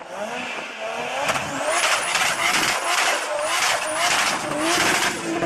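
Toyota Supra doing a burnout launch: the engine revs high while the tyres squeal, the pitch wavering up and down about twice a second, and the sound grows louder.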